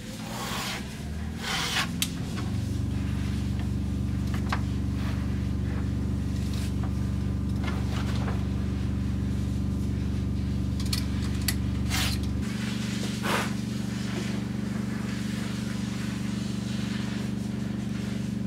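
An electric motor spins up over the first couple of seconds and then runs with a steady hum; its lowest tone drops away about twelve seconds in. A few short scrapes and clicks sound over it, among them a utility knife cutting leather along a steel straightedge.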